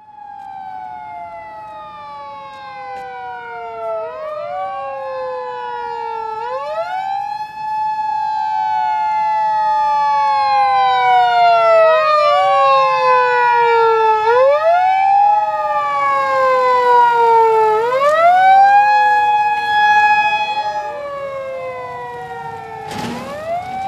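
Sirens of several Japanese emergency vehicles wailing at once, each rising quickly and then gliding slowly down every two to three seconds, over a steady held tone. They grow louder until about three-quarters of the way through, then ease off. A short knock near the end.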